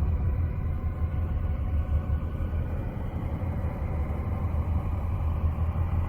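A NASA space sound: spacecraft radio and plasma-wave data turned into audio, heard as a steady deep rumble with faint steady hum tones above it.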